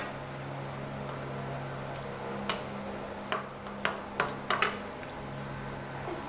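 Pakoras deep-frying in hot oil in a steel kadhai, a steady sizzle over a low hum. A metal slotted spatula clinks sharply against the steel pan about six times, between roughly two and five seconds in.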